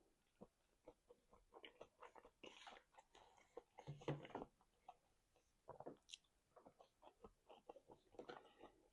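Faint close-miked chewing: a person biting and chewing food with wet, irregular mouth clicks and smacks, louder for a moment about four seconds in.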